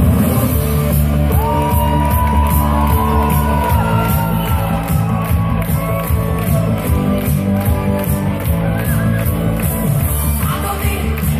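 Loud music with a heavy, steady bass beat and a gliding melodic line above it.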